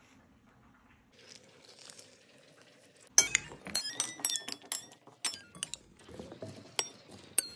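Metal spoons tossing a cucumber salad in a white ceramic bowl. About three seconds in a quick, irregular run of sharp, ringing clinks starts as the spoons strike the bowl's rim and sides.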